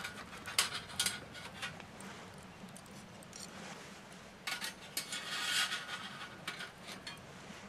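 Steel rods clinking and scraping against a folding steel stove as they are fitted into place: a few sharp clinks in the first two seconds, then a longer metallic scraping and rattling past the middle.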